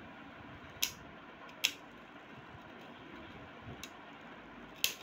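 Two Beyblade Burst tops, Valtryek and Storm Spriggan, spinning on a plastic-lined cardboard stadium floor with a soft steady whir. Three sharp clacks as the tops strike, about a second in, near two seconds and near the end.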